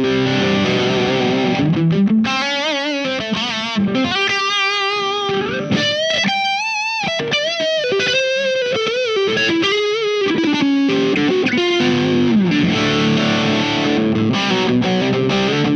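Humbucker electric guitar, a 1979 Yamaha SG500, played through the distortion (Hyde) side of a Visual Sound Jekyll & Hyde V1 pedal with the sharp switch on for a top-end boost. It starts on distorted chords, moves to a lead line with string bends and vibrato, then goes back to chords.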